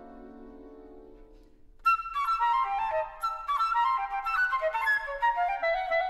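Flute and clarinet holding soft long notes that fade away, then about two seconds in a solo flute enters loudly with fast, accented, birdsong-imitating runs and trills.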